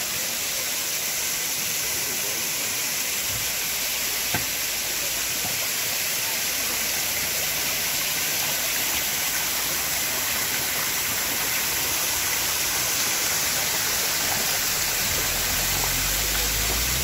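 Waterfall spilling down a rock cliff: a steady, even hiss of falling water.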